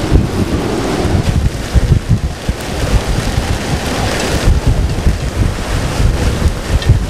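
Hurricane-force wind buffeting the microphone in uneven gusts, over the rush of storm-surge waves breaking and washing across the water.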